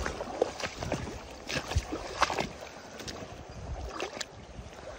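Fast river current running over a stony bed, with irregular crunches and clicks of footsteps on the cobble bank.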